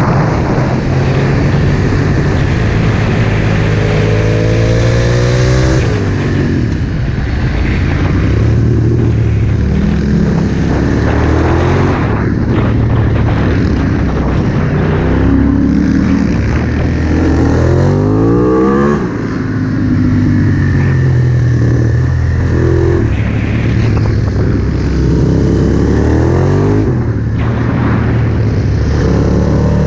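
Aprilia SXV V-twin supermoto engine heard onboard at speed, rising in pitch several times as it accelerates out of corners and falling back as it comes off the throttle, over a steady rush of wind noise.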